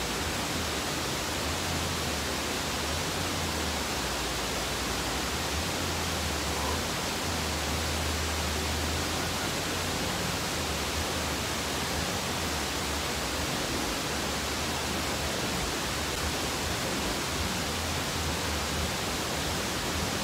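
A steady, even hiss with a low rumble underneath that swells and fades.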